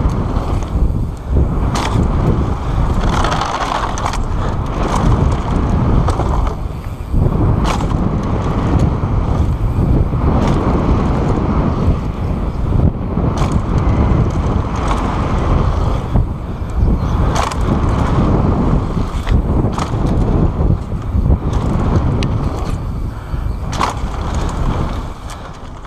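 Wind buffeting the action camera's microphone as a mountain bike descends a dirt trail, under tyre roar on hard-packed dirt and the bike rattling in frequent sharp knocks over bumps and landings.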